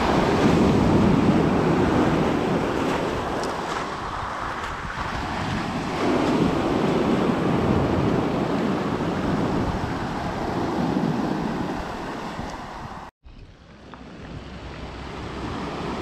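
Black Sea surf breaking and washing up a pebble beach, swelling and easing with each wave. The sound cuts out abruptly for a moment about thirteen seconds in.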